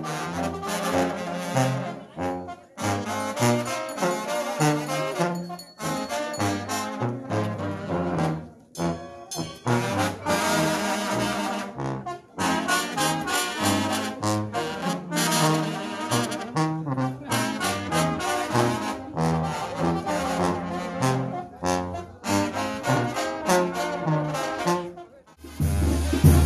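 Mexican banda brass band playing a tune, trombones and trumpets carrying the melody in phrases with short breaks. About a second before the end it cuts abruptly to louder, bass-heavy drumming.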